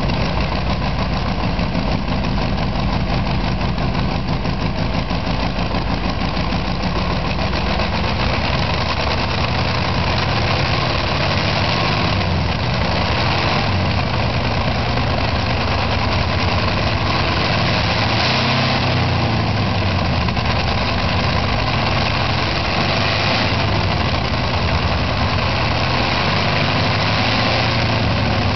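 Twin-row 18-cylinder radial aircraft engine running steadily at low revs. Its speed rises and falls slightly about halfway through.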